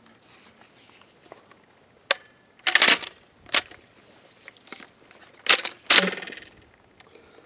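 DP12 double-barrel pump-action shotgun being racked: two pairs of sharp metallic clacks as the pump is worked back and forward, the last one ringing briefly. The action is feeding 1¾-inch 12-gauge mini shells from the magazine tubes into the chambers.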